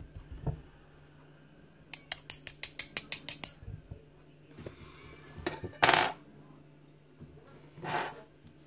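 Small brass lock pins, springs and tools clinking while a pin-tumbler cylinder is gutted: a quick run of about a dozen light metallic ticks about two seconds in, then two short scraping rattles.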